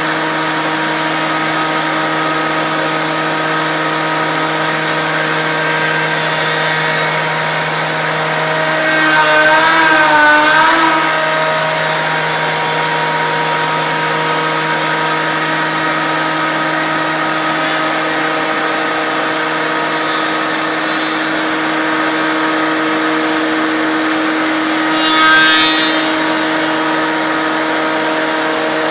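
Large five-axis CNC router's spindle running with a steady whine while its cutter mills a block of stacked wooden beams, with the hiss of chips being cut. About ten seconds in the spindle's pitch wavers as the cut loads it, and about twenty-five seconds in the cutting noise swells briefly.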